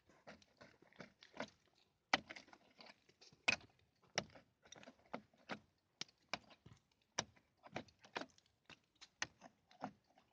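Irregular sharp knocks and clicks, about one or two a second, from hand-tool work on the seams between facade panels.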